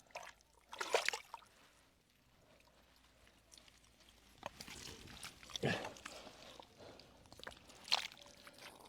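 Hands digging into the wet mud of a drained pond while feeling down a swamp eel's burrow: squelching, sucking mud and sloshing water in a few short bursts, about a second in, around five to six seconds, and again near the end.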